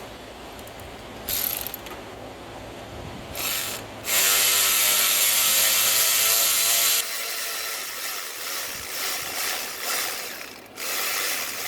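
Ratchet spinning out the quarter-inch stud that holds the A/C compressor in place: two short bursts, then one loud steady run of about three seconds, then further shorter runs near the end.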